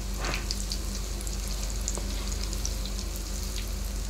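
Bottle-gourd pakoras sizzling and crackling in hot oil in a kadai, over a steady low hum; they are still soft inside and being fried until reddish-brown. A brief spatula scrape sounds about a quarter second in.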